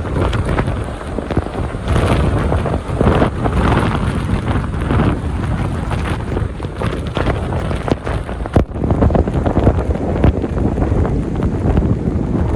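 Strong gusting wind buffeting the microphone: a heavy rushing roar that surges and drops with each gust, with one sharp click about eight and a half seconds in.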